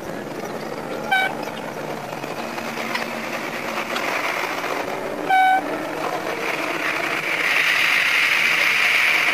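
Sanriku Railway 36-200 series diesel railcar running on the track, sounding its horn in two short toots, a brief one about a second in and a longer one about five seconds in. The running noise grows louder and hissier near the end as the railcar runs through a tunnel.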